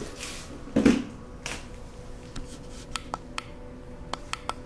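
Light, sharp clicks and taps in a small room, in two short clusters in the second half, over a faint steady hum.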